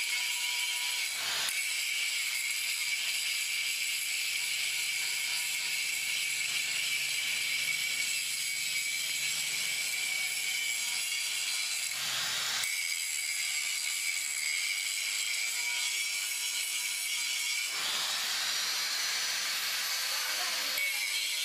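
Steady high whine and hiss of an angle grinder working a bronze propeller blade, mixed with the hiss of a gas cutting torch flame. The sound breaks off briefly about a second in and again around twelve and eighteen seconds.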